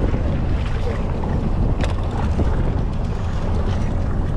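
Wind buffeting the microphone aboard a fishing boat at sea: a steady low rumble with rushing noise, and a brief click about two seconds in.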